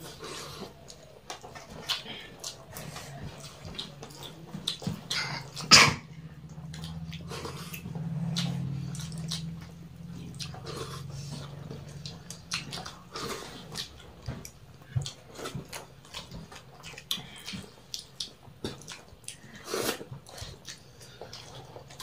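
Close-up eating sounds: fingers mixing rice on steel plates, chewing and lip smacks, with a sharp clack about six seconds in. A low droning hum runs underneath from about six to twelve seconds in.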